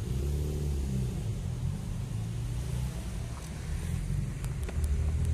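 Low rumble of a motor vehicle's engine going by, strongest in the first second or so.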